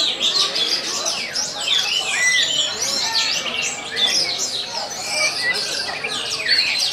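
Several caged orange-headed thrushes singing at once in a contest session, a dense tangle of quick whistled phrases and chirps overlapping without a break.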